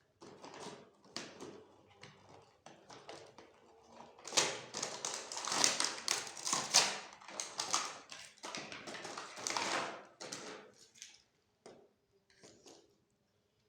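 Hands handling a toy and its plastic packaging: a run of clicks, taps and crackling rustles, busiest in the middle and thinning out near the end.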